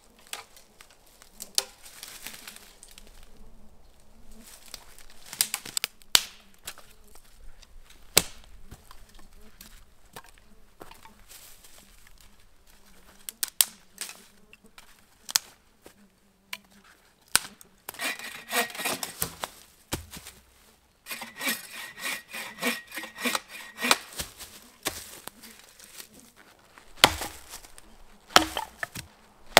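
Firewood being gathered and handled: dry sticks snapping and cracking, footsteps on dry leaf litter, and pieces of split wood set down. Two runs of fast, even rasping strokes come a little past the middle.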